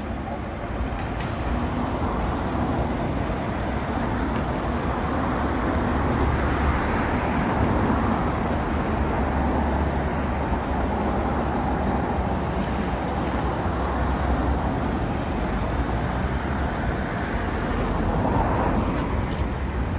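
Heavy diesel trucks idling close by: a steady low engine rumble under a constant wash of noise.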